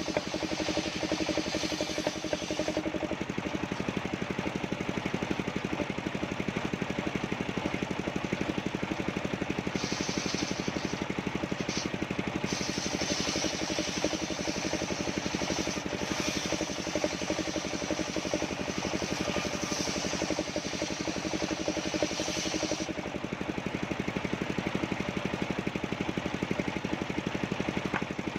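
Engine of a mobile circular sawmill running steadily with a fast, even firing beat. A higher hiss, typical of the blade cutting coconut wood, comes in about ten seconds in and drops away a few seconds before the end.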